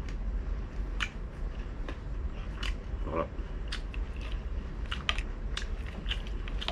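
Close-miked chewing and biting of crispy fried pork belly, with irregular sharp crunches throughout and a short hum about three seconds in.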